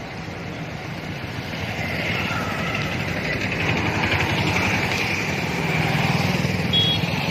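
Road traffic with a motorcycle engine running steadily, getting gradually louder. A brief high beep comes near the end.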